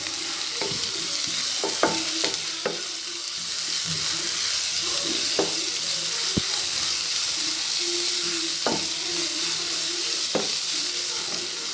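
Finely ground onions with green chillies and curry leaves sizzling steadily in hot oil in a kadai while being stirred, with the spoon clicking against the pan now and then.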